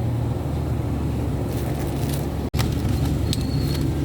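Steady low hum of a supermarket's background noise with a few faint clicks. The sound cuts out for an instant about two and a half seconds in.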